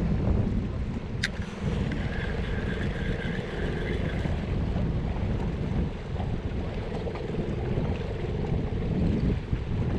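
Wind buffeting the microphone over harbour water, with a steady low engine hum underneath and a single sharp click about a second in.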